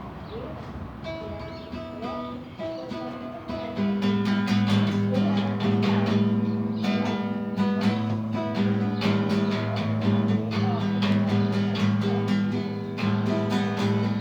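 Acoustic guitar being played: a few quieter picked notes, then louder strummed chords in a steady rhythm from about four seconds in.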